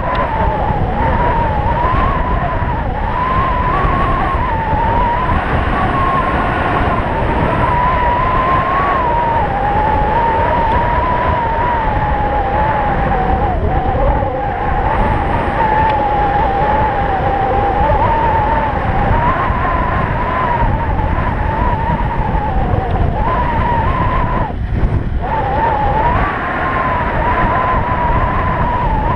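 Stealth Bomber electric bike riding fast on asphalt: a steady whine that drifts up and down in pitch with speed, over a heavy rush of wind on the microphone. The whine drops out briefly near the end, then returns.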